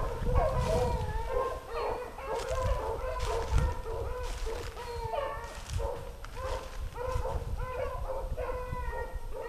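A pack of beagles baying, several dogs calling at once in overlapping, wavering yelps and howls throughout. Dry leaves crunch underfoot now and then beneath the baying.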